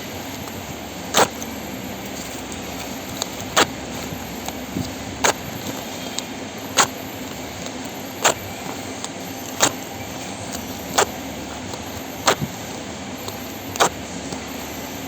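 Printed barcode label paper being torn, nine quick tears at a fairly even pace of about one every one and a half seconds, over a steady low background hum.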